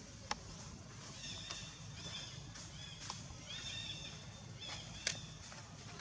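Several short, high-pitched animal calls, with a sharp click just after the start and a louder one near the end.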